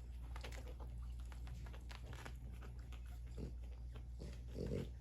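Four-day-old French Bulldog puppies suckling, a faint wet patter of small sucking and smacking clicks, with a couple of short little grunts near the end.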